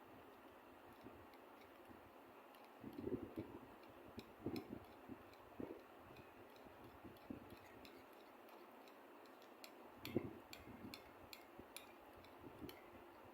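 Faint, irregular light clicks and a few soft knocks, as of small objects being handled, with the loudest knock about ten seconds in.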